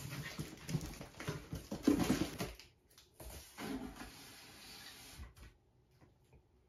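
Packaging rustling and crinkling as a shipping box is opened and its contents unwrapped by hand, in two spells: the first for about two and a half seconds, the second stopping about five and a half seconds in.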